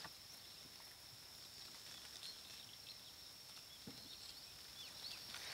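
Very faint outdoor quiet: a few small bird chirps over a steady high-pitched drone.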